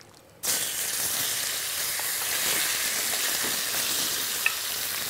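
Marinated chicken breast pieces hitting a wok of hot melted ghee over a high flame: a sudden sizzle starts about half a second in and holds steady, the sign that the fat is hot enough to sear the meat.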